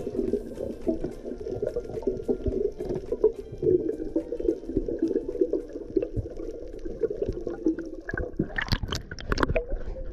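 Underwater sound of the open sea heard through a submerged camera: a steady, muffled gurgling wash of water, with a cluster of louder crackling water noises in the last two seconds.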